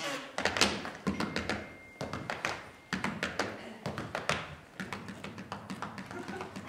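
Tap shoes striking a stage floor: two dancers tapping out quick clusters of sharp taps with short pauses between phrases.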